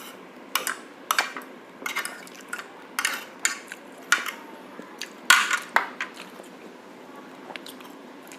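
Cutlery clinking and scraping against a plate while eating, in a run of short sharp sounds that stops about six seconds in.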